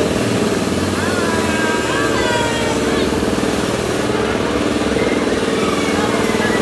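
An engine running steadily, with a few voices over it.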